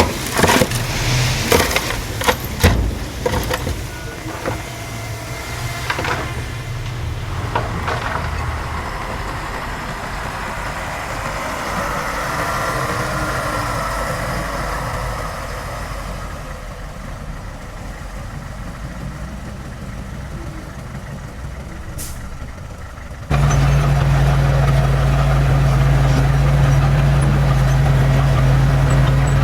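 Diesel engine of heavy earthmoving machinery running, with a series of clanks and knocks over the first several seconds. About 23 seconds in it cuts abruptly to a louder, steady, low engine drone from close by.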